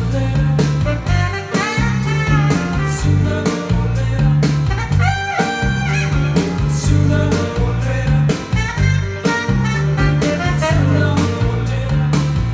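Music played back through Paradigm Studio 100 v1 floor-standing loudspeakers, with a prominent bass line and a steady beat under a melody.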